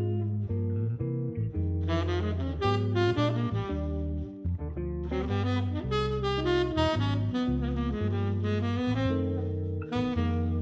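Background music: jazzy instrumental with a saxophone-like lead melody over a steady bass line.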